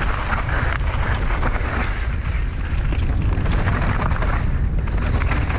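Steady wind rumble on a rider-worn clip-on microphone as a downhill mountain bike descends a soft dirt trail, with tyre noise and many small clicks and rattles from the bike over the bumps.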